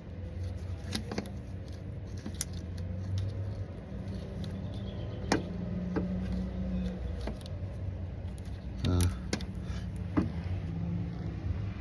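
Scattered light metallic clicks and clinks of a wire terminal, nut and hand tools being worked onto a car starter's post, with a rattling run of clinks about nine seconds in, over a steady low hum.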